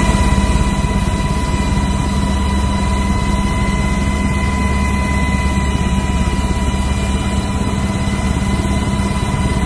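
Aircraft engine running steadily, heard on board: an even low rumble with a constant high whine over it.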